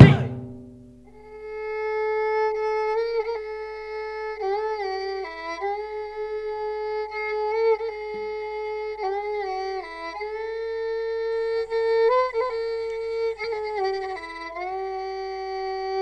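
Dance accompaniment music: a solo violin playing a slow, ornamented melody. It holds one long note, broken by quick turns and downward slides.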